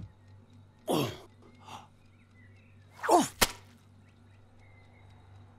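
Cartoon sound effects of a pancake being tossed from a frying pan: two short swooping sounds falling in pitch, about a second in and about three seconds in. The second ends in a sharp thunk, the pancake hitting the ceiling.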